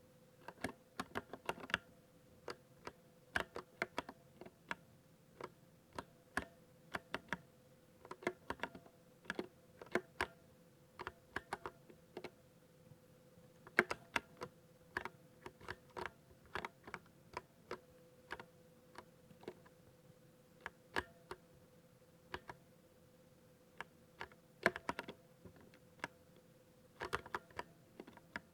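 Typing on an RGB 60% mechanical keyboard with Nostalgia Ex switches: crisp keystrokes in irregular bursts of a few keys at a time with short pauses between, the smooth sound the switches are being shown off for.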